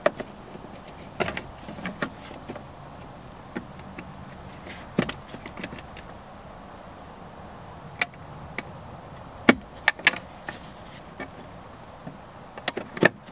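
Plastic wiring-harness connectors being worked loose and unplugged from a truck's driver-door module: about ten irregular sharp clicks and snaps.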